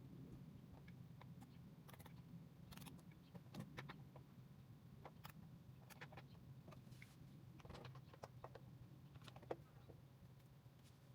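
Faint, scattered clicks and light taps of tools and parts being handled during motorcycle reassembly, over a low steady hum.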